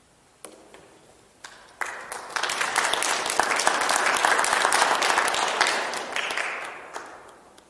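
Audience applauding: a few scattered single claps, then full applause from about two seconds in that dies away near the end.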